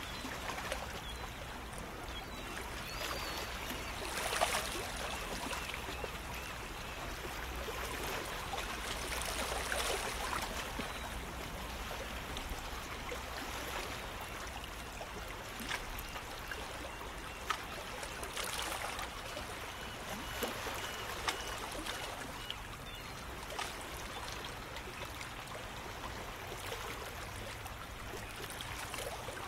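Shallow water lapping and trickling against shore rocks, a steady wash that swells now and then, with small splashes.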